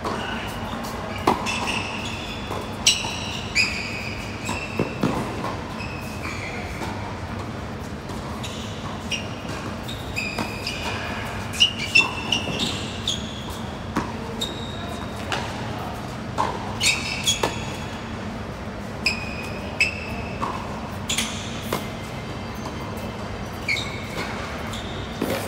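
Tennis rally on a hard court: rackets striking the ball and the ball bouncing, as a string of sharp clicks at irregular intervals, mixed with short high squeaks of sneakers on the court surface. It echoes in a large covered hall.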